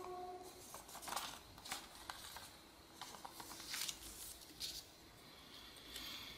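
A sheet of A4 paper being folded by hand: soft rustling broken by several short, crisp crinkles as the folds are pressed and the paper is shifted.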